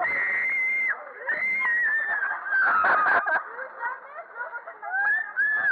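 Riders on a swinging fairground thrill ride screaming: three long, high screams of about a second each, then a jumble of shorter whoops and yells from the second half on.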